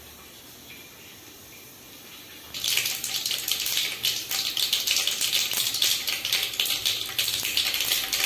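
Mustard seeds, chana dal and urad dal in hot oil in a kadai: faint hiss at first, then about two and a half seconds in a sudden loud, dense crackle of sizzling and popping as the mustard seeds start to splutter, the sign that the oil is hot enough for the tempering.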